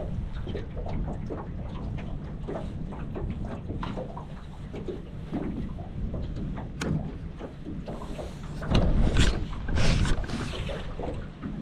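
Wind buffeting the microphone and water lapping against a small boat's hull, with scattered light knocks and splashes. Two louder gusts come about nine and ten seconds in.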